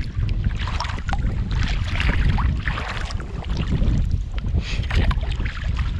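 Kayak paddle strokes splashing and water washing along the hull, with heavy wind rumble on the microphone.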